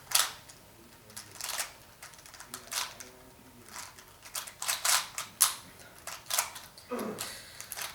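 Plastic puzzle cube's layers being turned by hand, giving irregular clicking snaps, in small clusters, as the last moves of a solve.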